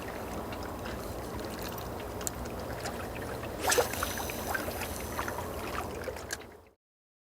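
Water lapping and splashing with small scattered splashes, and one louder splash a little over halfway through. The sound fades out shortly before the end.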